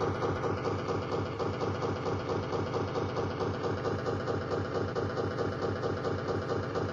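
Novomatic slot machine's electronic win count-up sound, a fast, evenly pulsing tone that repeats without a break while a large win is tallied.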